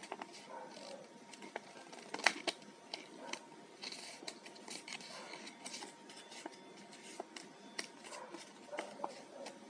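Paper being folded by hand into an origami module: crinkling and rustling, with many short sharp clicks as creases are pressed in, the loudest a bit over two seconds in.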